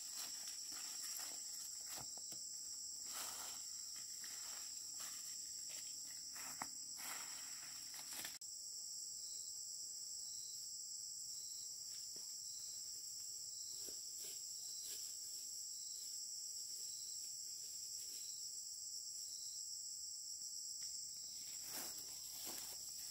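Steady high-pitched insect chorus, a continuous shrill drone. Faint scattered clicks and rustles come through during the first few seconds.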